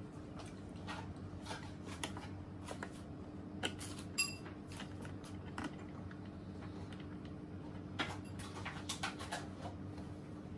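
Light clicks and taps of hard plastic parts and a screw as a Karcher K4 pressure washer's handle is screwed into its socket by hand, with a steady low hum underneath.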